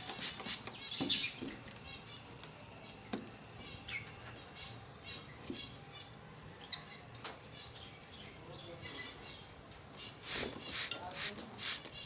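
Lovebirds chirping in short, high calls, mixed with bursts of wing flapping. The calls and flaps cluster in the first second or so and again near the end, with fainter chatter between.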